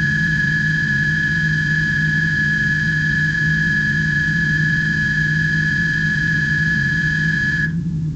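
Sound-effect ambience of a spaceship interior: a steady low hum with a steady high-pitched whine over it. The whine cuts off near the end and the hum starts to fade.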